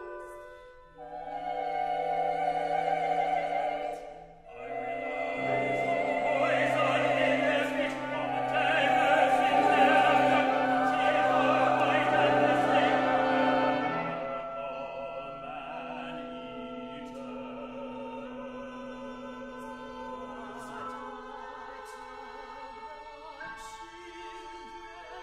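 Contemporary operatic singing with a small chamber ensemble: voices sung with vibrato over held instrumental chords. It swells to its loudest through the middle, then settles into quieter sustained tones.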